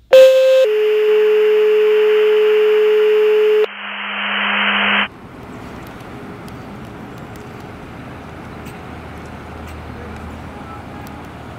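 Electronic intro sound effect: a steady synthesized tone over a noise wash that steps down in pitch about half a second in, then a rising whoosh that cuts off suddenly about five seconds in. After it, quieter outdoor street ambience with a low engine rumble growing near the end.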